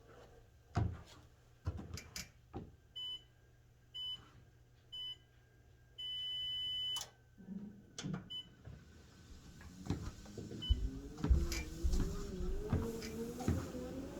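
Sole F85 treadmill console beeping: several short beeps and one long one. Then the drive motor whines, rising in pitch as the belt speeds up, with regular footfalls on the belt.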